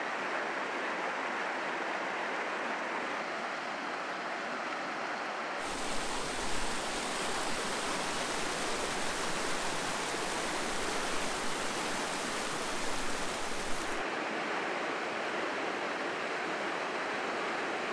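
Mountain creek rapids rushing steadily over boulders. The sound turns fuller and hissier about six seconds in, then changes back about fourteen seconds in.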